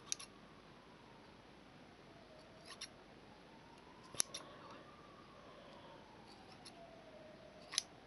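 Small scissors snipping crochet thread: a few short, sharp snips and blade clicks, two close together at the start, one a little before the three-second mark, a pair about four seconds in and one near the end.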